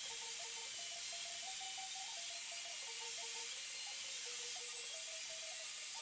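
A handheld electric power tool runs steadily against a steel flat bar, giving a high whine that wavers slightly in pitch. Background music with a stepping melody plays over it.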